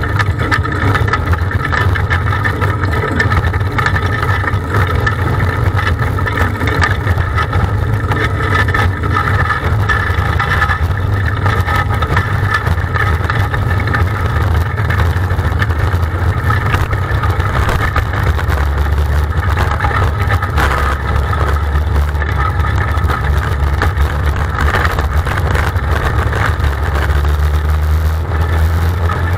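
Onboard sound of a small dirt-track race car's engine running steadily at low speed while rolling under caution or pace laps. Its pitch drops a little past halfway.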